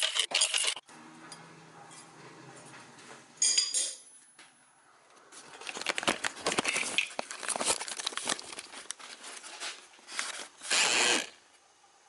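Angle grinder with a cut-off disc cutting steel, stopping sharply under a second in. Then a short loud scrape, and later a stretch of irregular clattering and rustling as tools and metal are handled on a workbench, loudest near the end.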